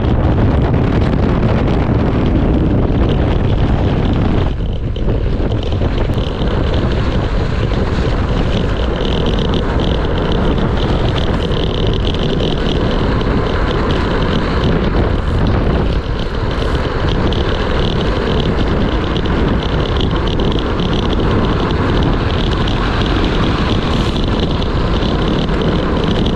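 Wind buffeting the microphone as a Blokart land yacht sails fast over hard dirt, its wheels rolling underneath. The wind noise eases briefly about four and a half seconds in.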